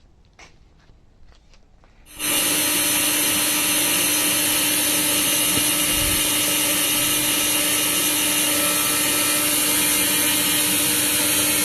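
A few faint clicks, then about two seconds in an electric motor starts abruptly and runs loud and steady at a constant pitch, with a strong high hiss.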